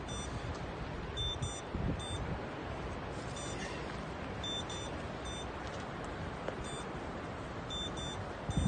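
Steady outdoor noise of wind and rustling branches as a man climbs a tree, with faint short high-pitched beeps coming every second or so at uneven intervals.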